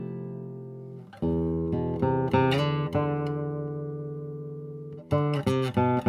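Matsuoka M-30 nylon-string classical guitar played solo. A chord rings out and fades, a new chord is struck about a second in with a few plucked notes after it and left to ring for a few seconds, then a quick run of single notes near the end.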